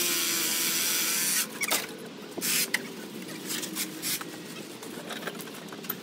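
A loud hiss lasting about a second and a half at the start, a shorter burst of the same about two and a half seconds in, and scattered scrapes and clicks, over the steady low hum of a running motorized shed mover.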